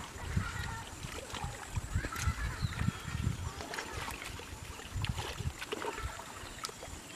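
Hands squelching and sloshing through mud and shallow water while groping for fish by hand, with irregular soft slaps and splashes.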